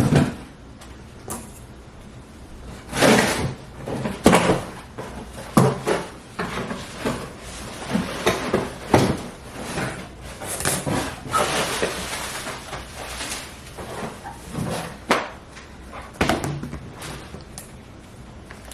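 Packages being handled and opened: irregular rustling, crinkling and knocks of cardboard and plastic wrapping.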